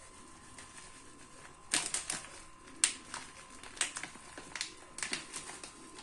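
Grated parmesan being shaken out of its container over a lasagne: a string of sharp, irregular taps and clicks, starting nearly two seconds in.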